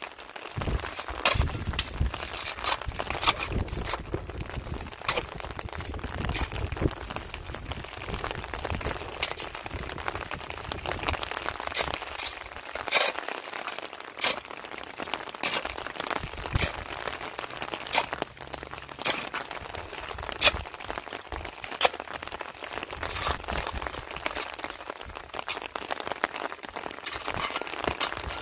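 Rain on plastic sheeting: a steady hiss with irregular sharp ticks and crackles from heavier drops, about one or two a second.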